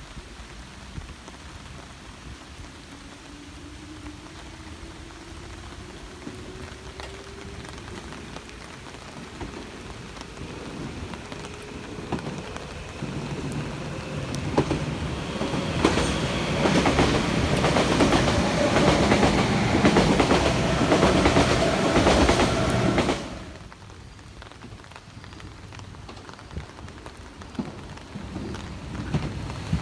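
An electric train passes in the rain: a slowly rising motor whine, then a loud rumble with wheel clatter over the rails, which cuts off abruptly about three-quarters of the way through. A steady hiss of rain lies under it all.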